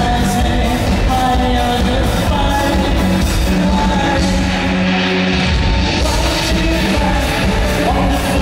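Live pop band playing, with a male lead vocal singing over electric guitar, bass and drums, heard from the audience in a large hall. The bass and drums drop out for about a second partway through, then come back in.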